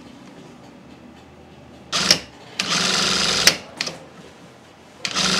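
Industrial sewing machine stitching soccer ball panels together, running in short spurts: a brief burst about two seconds in, a run of about a second, then another run starting near the end.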